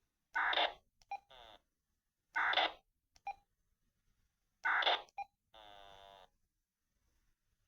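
Handheld radio transceiver sounding three short, loud tone bursts about two seconds apart. Each burst is followed by a click, and after the first and third comes a quieter buzzy tone lasting under a second.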